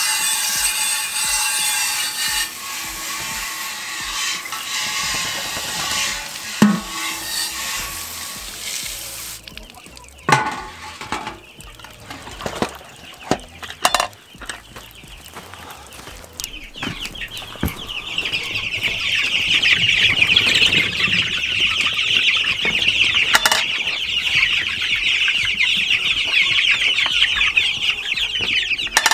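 A brooder full of chicks peeping continuously, a dense chorus of rapid high peeps that swells up about halfway through and carries on. Before it comes a steady hiss, then a few sharp metallic knocks as the galvanized metal poultry waterer is handled.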